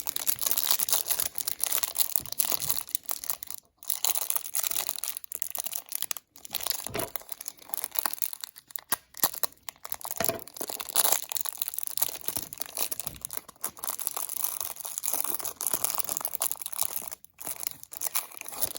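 Trading-card hanger box packaging being torn open and handled: continuous crinkling and tearing with many sharp crackles and a few brief pauses.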